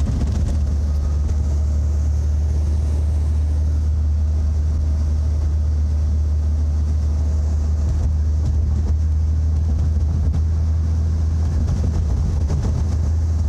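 Steady low drone of a Citroën CX six-wheeler driving at speed, heard from inside the cabin: engine and road noise without let-up.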